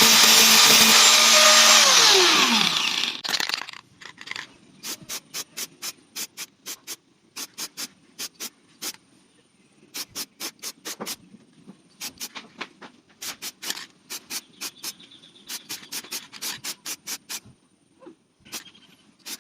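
A power tool runs and winds down, its pitch falling until it stops about three seconds in. Then comes a long run of short, sharp clicks, often in quick groups of two to four.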